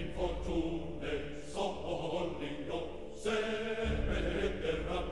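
Background choral music: voices holding chords that change about every second.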